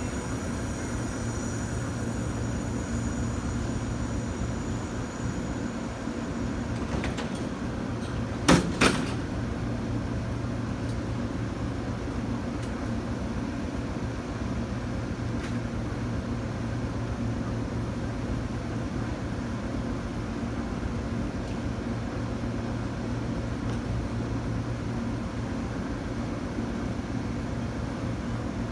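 Amtrak P42DC diesel locomotive idling steadily with a low, even rumble while the train stands at the station. Two sharp knocks come close together about eight and a half seconds in.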